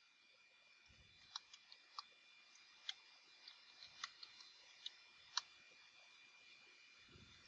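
Near silence: faint steady hiss with about ten small sharp clicks scattered irregularly, roughly one a second.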